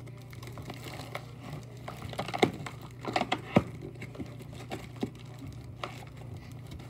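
Hands handling and opening a toy action figure's packaging: scattered clicks, taps and crinkles, with the two sharpest knocks about two and a half and three and a half seconds in.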